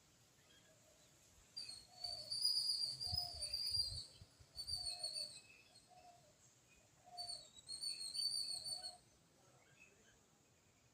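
High-pitched chirping calls in three bouts: a long run about two seconds in, a short one near five seconds, and another from about seven to nine seconds.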